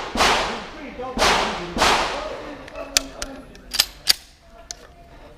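Three pistol shots ringing out with long echoing tails, two of them close together a little over a second in, then a few sharp mechanical clicks, typical of a pistol being loaded and made ready.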